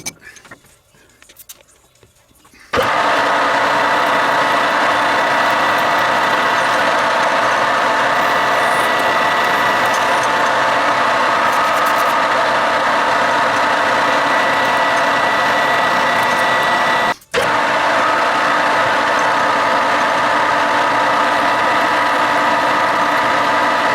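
A workshop machine's motor running loud and steady, starting abruptly about three seconds in and cutting out for a moment about seventeen seconds in before resuming.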